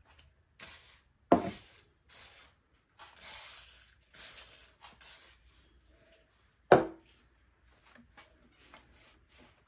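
Aerosol can of brake cleaner sprayed in about six short hisses onto a chainsaw's dirty housing, with two sharp knocks, one about a second in and one past the middle. Faint rubbing follows near the end.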